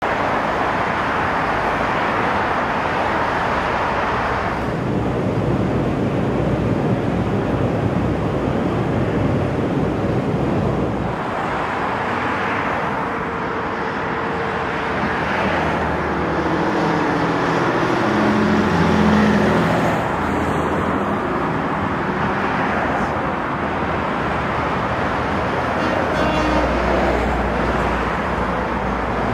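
Busy multi-lane road traffic: cars passing one after another, their noise swelling and fading in waves. Around the middle a heavier engine with a deeper pitched note goes by, and a low rumble comes in near the end.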